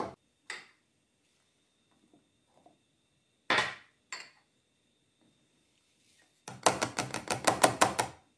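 Kitchen utensils clacking: a few separate knocks, then a quick even run of about a dozen taps near the end.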